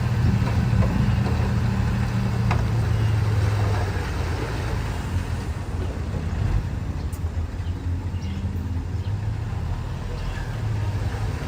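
Diesel engine of heavy earthmoving machinery running steadily at low revs, easing slightly about four seconds in.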